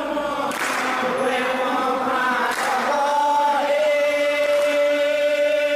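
A group of devotees chanting a prayer together in unison, with no instruments. The chant moves syllable by syllable at first, then settles on one long held note from a little past halfway.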